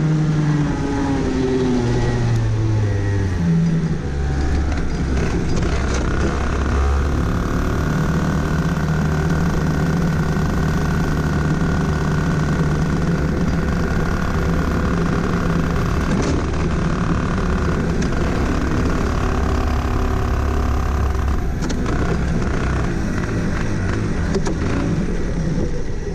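Onboard two-stroke kart engine coming off the throttle, its pitch falling over the first four seconds as the kart slows, then running at low revs as a steady low drone while the kart rolls slowly.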